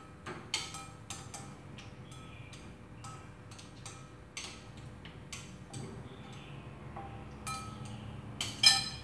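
Metal spoon clinking against a glass mixing bowl while tossing chicken wings in marinade: irregular clinks with a short ring, the loudest near the end.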